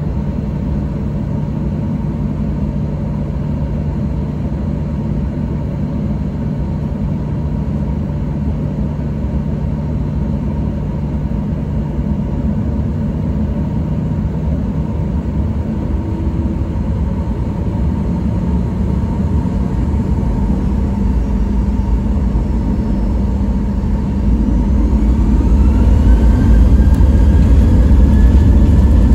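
Cabin sound of a Boeing 737-800's CFM56-7B turbofan engines, first at a steady idle hum. About two-thirds of the way through they spool up to takeoff power, with a rising whine and a growing deep rumble as the takeoff roll begins.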